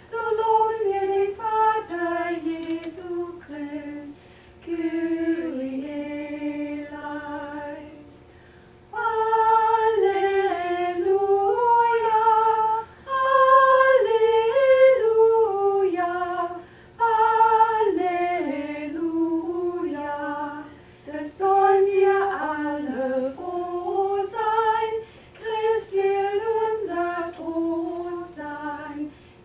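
A small group of mainly women's voices singing an unaccompanied melody in unison. The song comes in phrases of a few seconds, each followed by a short pause for breath.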